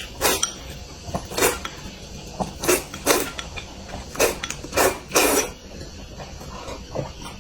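Close-miked eating sounds: a person's mouth noises as they eat, in a series of short, sharp bursts at uneven intervals, with smaller ones near the end.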